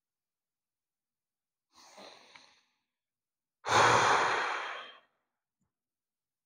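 A man's breathing during a seated breathing exercise: a faint breath about two seconds in, then a loud, long out-breath that fades over about a second and a half.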